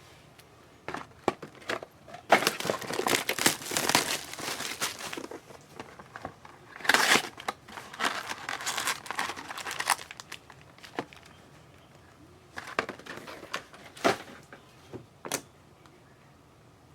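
Trading card pack wrappers crinkling and tearing as packs are opened by hand, in two longer stretches, followed by scattered short rustles and clicks.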